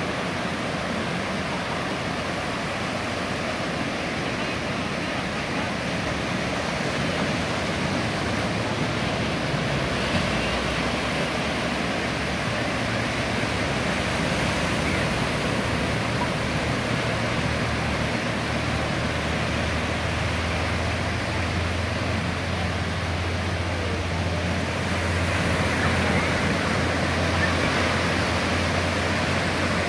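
Ocean surf breaking and washing up a sandy beach, a continuous steady rush of waves. A low steady drone joins about two-thirds of the way through.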